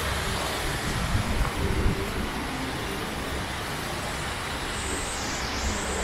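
Steady rush of flowing water from the waterfall and stream, with uneven low rumbles in the first two seconds and a thin, high whistling tone that dips and rises near the end.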